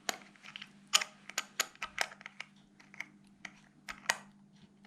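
About a dozen small, sharp, irregular clicks and taps of a wristwatch's case back and small metal parts being handled and fitted at close range, over a faint steady hum.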